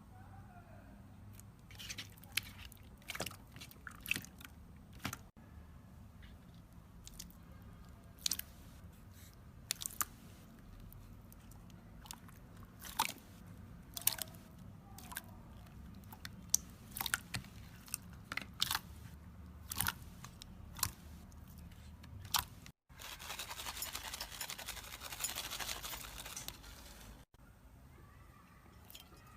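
Slime being handled and squished, giving scattered small pops and crackles. About 23 seconds in, after an abrupt cut, a few seconds of dense, continuous crackling.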